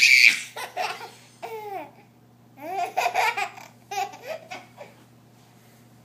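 An 11-month-old baby laughing in two bouts of belly laughter: a loud, high burst right at the start followed by quick laugh pulses, a short pause, then a second run of laughs that stops about a second before the end.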